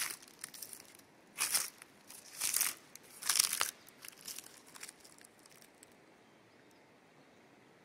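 Footsteps crunching on dry reeds and trampled vegetation, a few short steps about a second apart, trailing off about five seconds in.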